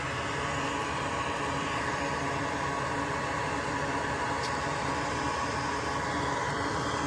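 Steady whirring hiss of a small electric blower running, with a faint hum under it.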